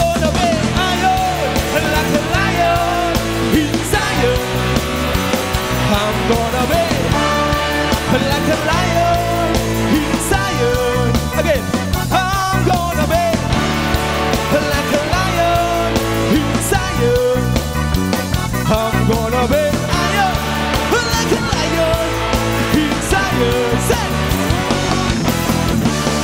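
Live rock band playing a loud, steady song: electric guitars, bass guitar and drum kit together.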